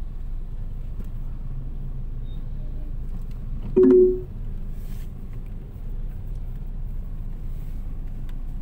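Steady low rumble of a car's engine and road noise heard inside the cabin in slow traffic. About four seconds in, one short, loud horn beep.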